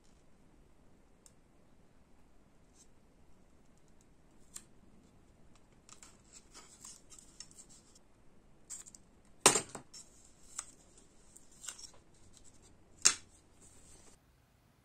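Small scissors cutting masking tape: two sharp snips about three and a half seconds apart, with a few smaller cuts between, after a stretch of faint scratchy handling of the tape.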